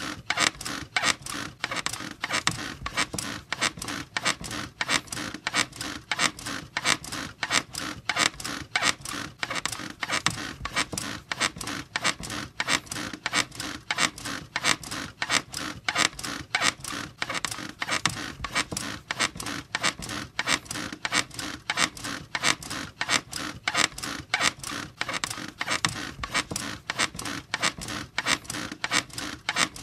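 A bed squeaking over and over in a steady, even rhythm of about two or three squeaks a second, as if someone were bouncing on it.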